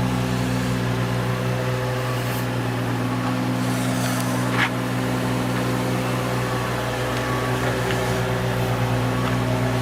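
Nissan 350Z's 3.5-litre V6 engine running steadily at a constant speed, with one short click about halfway through.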